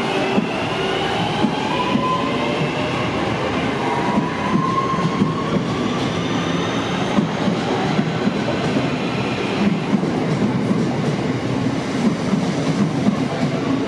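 Class 323 electric multiple unit pulling out and gathering speed, with a steady rumble, wheels clicking over the rail joints, and a motor whine that slowly rises in pitch as it accelerates.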